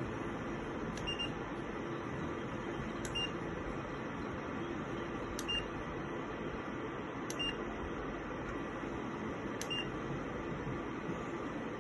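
Ceramic fan heater running with a steady blowing noise and a low hum. About every two seconds there is a short click paired with a brief high beep, five times in all.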